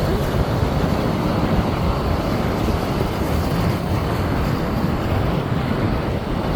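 Ocean waves washing and splashing against shoreline rocks, a steady rushing noise, with wind rumbling on the microphone.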